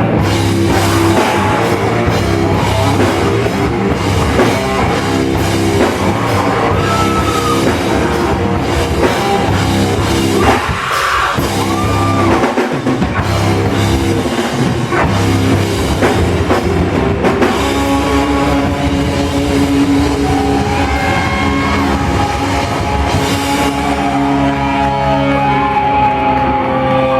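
Loud rock music from a band: drum kit with guitars and bass playing continuously. Near the end the cymbals fall away, leaving ringing guitar chords.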